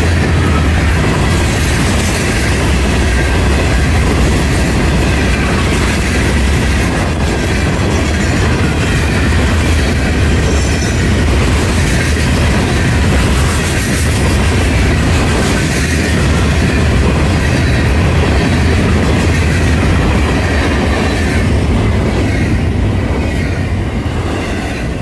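Florida East Coast Railway freight train rolling past, its cars making a steady deep rumble on the rails that begins to fade in the last few seconds.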